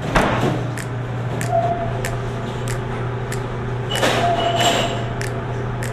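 Restaurant kitchen background: a steady low hum with light clicks every half second or so, and short rustling bursts at the start and about four seconds in.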